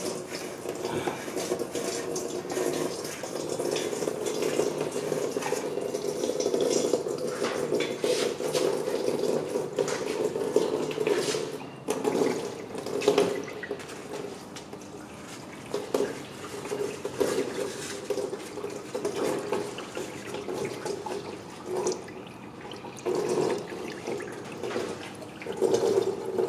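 Engine oil pouring out of a Ford F-150's oil drain valve and half-inch hose into a drain pan. It runs as a steady flow at first, then from about halfway comes in uneven surges.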